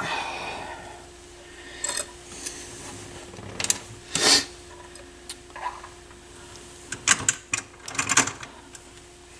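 Small clicks, taps and scrapes of hands working parts at the end of a Pro-Ject Essential turntable's tonearm, several in quick succession near the end, over a faint steady hum.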